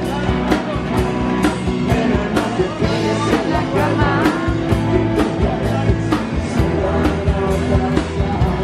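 Live rock band playing: electric guitars and bass over a drum kit keeping a steady beat, with a singer's voice coming in now and then.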